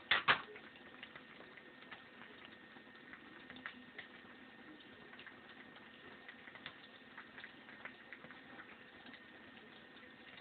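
Faint, scattered small ticks and rustles of a rat-tail comb and fingers picking through hair to find the elastic anchor thread, with a couple of sharper clicks right at the start.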